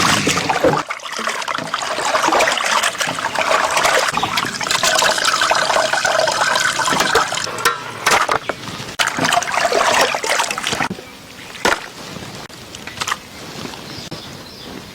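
Raw chicken pieces being rubbed and rinsed by hand in a vessel of water: splashing and trickling that dies down about eleven seconds in, leaving a few light knocks.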